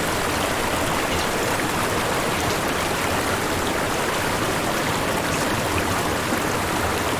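Steady white noise, an even rushing hiss with no change in level.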